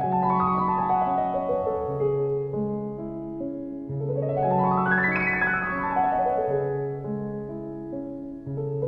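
Background piano music: flowing arpeggios that climb and fall back twice, over held bass notes.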